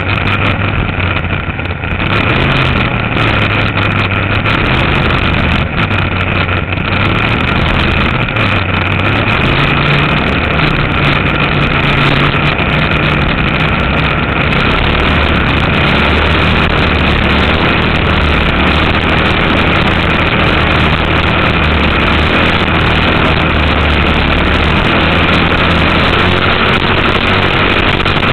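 Race boat's Chevrolet engine running continuously under way, with the rush of wind and water on the on-board microphone. Its note wavers for the first several seconds, then holds steady and a little louder. The crew ran it below full speed for much of the race because of an oil-pressure problem.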